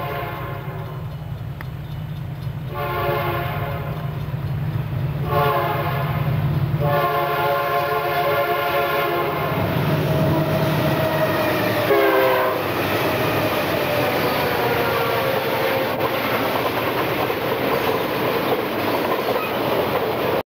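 Diesel freight locomotive's air horn blowing the grade-crossing signal (long, long, short, then a long blast) as the train approaches. The horn's pitch drops as the locomotive passes about twelve seconds in, and the double-stack container train's wheels then keep running and clattering over the rails.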